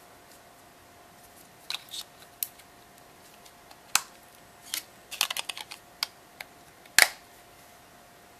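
Small plastic clicks and snaps as a BlackBerry Pearl 9100's battery is pressed into place and the phone is clipped back together, with a quick run of clicks a little past five seconds in and the loudest snap about seven seconds in. A faint steady hum runs underneath.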